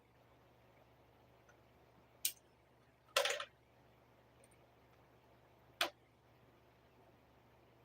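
Three short sharp clicks from a PS5 console being taken apart by hand, the middle one the loudest, a brief rattling cluster about three seconds in.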